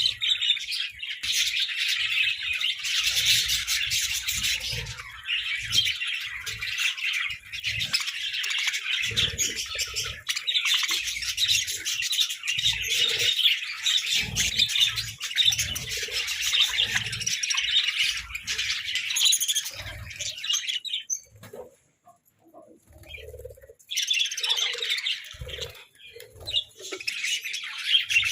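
A group of budgerigars chattering and chirping continuously in busy overlapping warbles, with scattered soft low knocks. The chirping breaks off for about two seconds near the end, then starts again.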